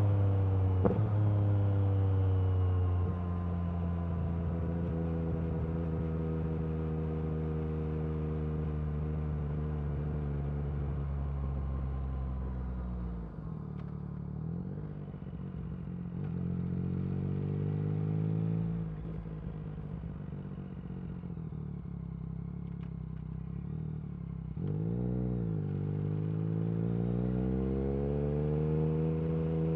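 Yamaha MT-09 SP's three-cylinder engine through an Akrapovic carbon racing exhaust while riding. Engine speed falls slowly for the first dozen seconds, then climbs in a few rising pulls, each ending in a short drop as the throttle closes or the gear changes.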